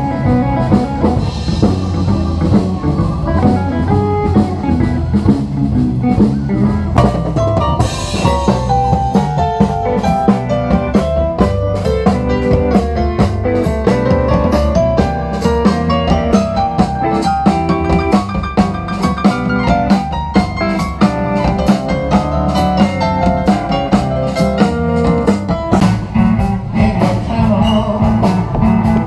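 Live blues band playing: drum kit keeping a steady beat under electric bass, guitar and keyboard.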